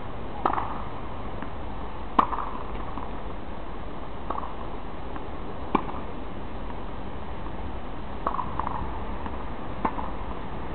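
Tennis rally on a hard court: a tennis ball struck by racket strings and bouncing, giving sharp pops every second or two, about six in all, the loudest about two seconds in. A steady low background noise runs underneath.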